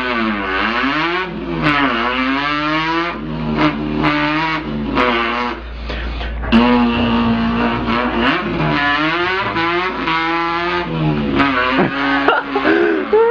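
A man's voice imitating a revving import car engine with his mouth, the pitch climbing and dropping repeatedly like revs through gear changes, with brief breaks every few seconds.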